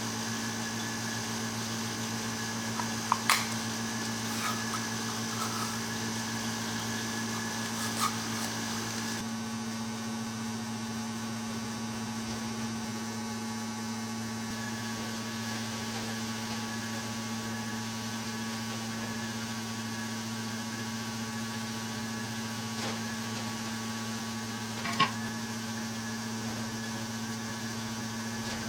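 A small electric machine running steadily with a constant hum and whine, broken by a few short clicks; about nine seconds in, part of the higher whine drops away.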